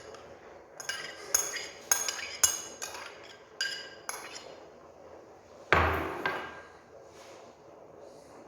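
Kitchen utensils clinking against dishes: a run of about eight sharp, ringing clinks over the first four seconds, then one louder clatter just before six seconds in.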